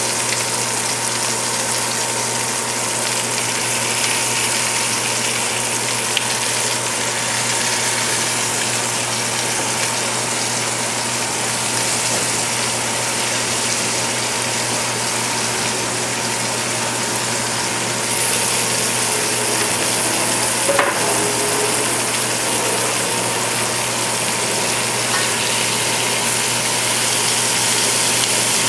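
Kitchen range hood fan running steadily with a low hum, over flour-coated chicken thighs frying in a stainless steel sauté pan. Chopped vegetables are scraped into the pan from a cutting board, with a brief knock about two-thirds of the way through.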